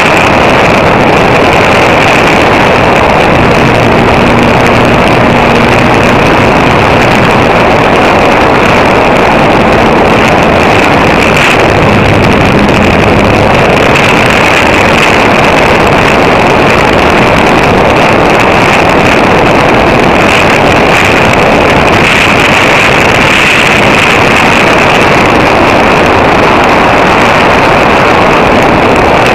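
Radio-controlled plane in flight, heard from its onboard camera: the motor and propeller run steadily under loud wind rush on the microphone.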